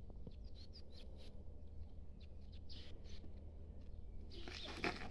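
Faint birds chirping over a low, steady background rumble, with a few light clicks; a man's voice starts near the end.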